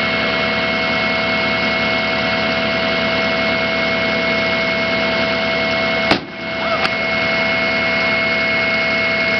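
A car airbag module set off on open pavement: its inflator fires with a single sharp bang about six seconds in, and the overall sound drops briefly just after. Under it runs the steady idle of a fire-rescue truck's engine.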